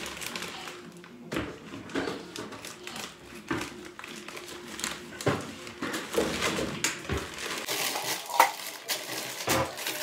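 Plastic bag of chicken pieces crinkling and rustling as it is handled, with scattered knocks and clinks on the kitchen counter.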